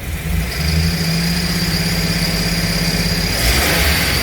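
2005 Chevrolet Express's 4.3-litre V6 revved with a throttle blip: the engine note rises about half a second in and holds steady with a high whine over it, then a short rush of noise near the end. The engine has a misfire code on bank 1 (cylinders 1, 3 and 5).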